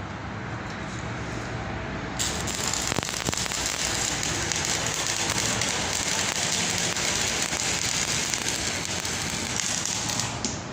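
Electric arc welding: a steady crackle and sizzle of the arc, getting louder and brighter about two seconds in and stopping just before the end.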